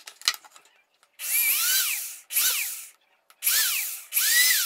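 Electric drill run in four short trigger bursts, its motor whine climbing then falling away each time, as a thin bit bores small holes in a plastic aerosol-can cap. A few light handling clicks come in the first second before the drilling starts.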